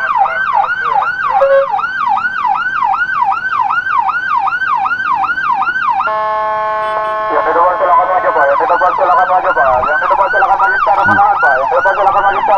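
Escort motorcycle's electronic siren sounding a fast yelp: repeated falling sweeps, about two to three a second. About six seconds in it switches briefly to a steady horn-like tone, then the yelp comes back with a steady tone layered over it.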